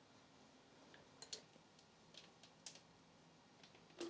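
A caulking gun clicking faintly as its trigger is squeezed to push out caulk: a handful of short, irregularly spaced clicks, the loudest near the end.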